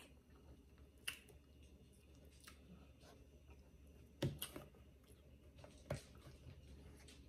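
Near silence with a few faint clicks and a soft knock, the loudest just after four seconds, as a bottle is handled and its cap twisted.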